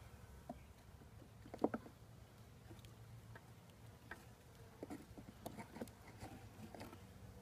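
Faint scattered clicks and light knocks of wooden hive frames and a metal hive tool being worked in a hive box, the loudest a quick double knock about one and a half seconds in.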